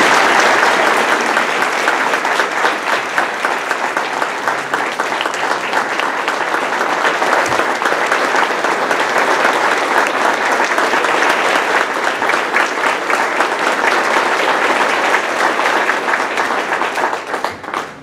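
Audience applauding, a steady mass of clapping that dies away near the end.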